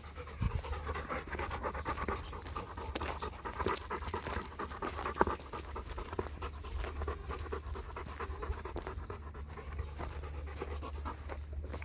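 A dog panting steadily close by, with small scuffs and rustles.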